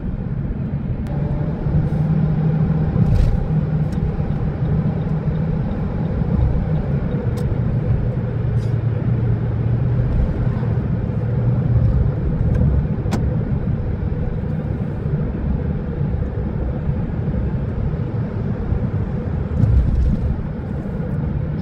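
Car engine and tyre road noise heard from inside the cabin while driving at a steady speed: a steady low rumble and hum, with a few brief light ticks.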